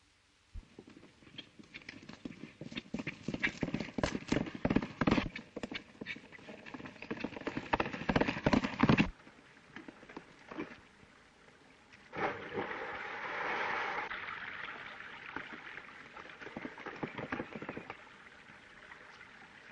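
Galloping horse hoofbeats, a rapid drumming that grows louder and cuts off suddenly about nine seconds in. From about twelve seconds a rushing noise follows with fainter hoofbeats under it.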